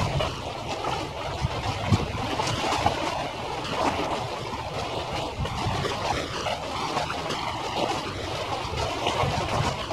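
Harbour ambience sped up fivefold: a steady noisy wash of wind on the microphone and water, with small irregular flutters and no clear engine note.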